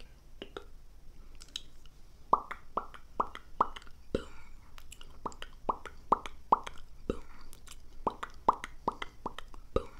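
Mouth sounds: three runs of four or five sharp pops about 0.4 s apart, with faint mouth clicks between the runs.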